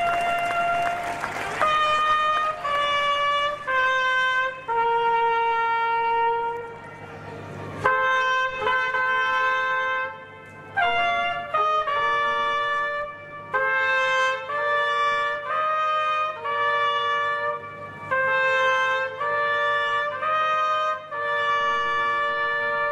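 Two trumpets playing a ceremonial fanfare: a long held note, then a run of shorter notes, often in two-part harmony, with brief pauses about seven and ten seconds in.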